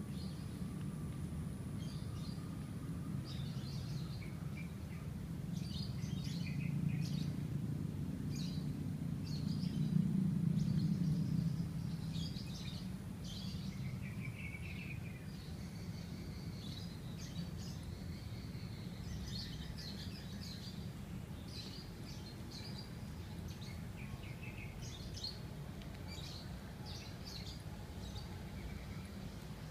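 Small birds chirping in many short, repeated high calls over a steady low rumble of distant city traffic, which swells for a few seconds about ten seconds in.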